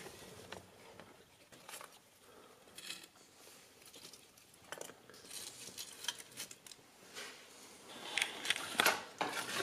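Faint scattered rustles and small clicks of kindling and paper being handled while a fire is lit in a fireplace, growing busier near the end.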